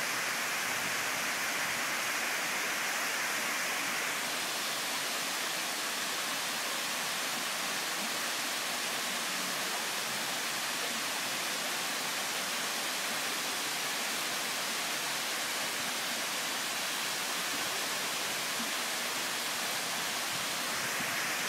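Steady rush of water from a tiered cascade waterfall spilling over stepped rock ledges, a little brighter and hissier for the first four seconds, then even.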